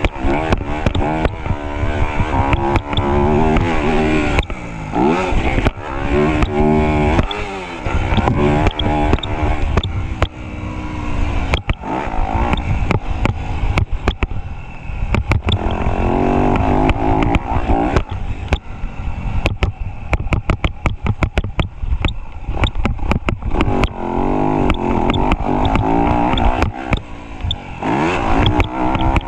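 Motocross bike engine, heard from an onboard camera, revving up and dropping back again and again as the bike is ridden around the track. Frequent sharp knocks and rattles run through it.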